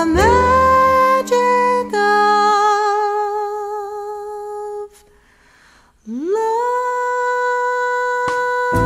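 A female voice sings long, sustained notes with a slow vibrato, mostly unaccompanied in a slow jazz ballad. After a short pause about five seconds in, she scoops up into another long held note, and the band comes back in at the very end.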